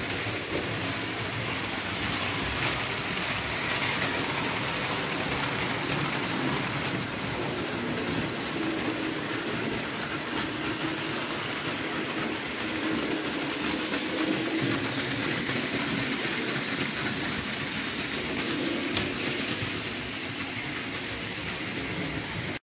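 Model trains running on a layout: metal wheels rattling over the rails with an electric motor humming, as a train of tinplate passenger coaches rolls through the station. The sound cuts off suddenly near the end.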